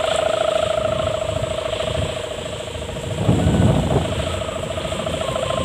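Sendaren bow hummer on a large flying kite droning a steady tone with a fast pulsing throb, the sound likened to a Dompeng diesel engine. A brief low rumble comes in about three seconds in.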